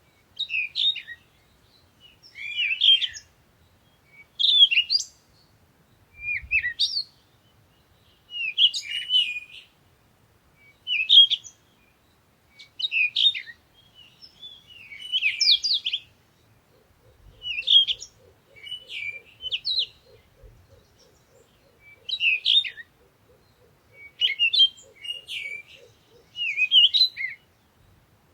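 A songbird singing short, quick warbled phrases, one about every two seconds. A faint, fast, low trill runs underneath through the latter part.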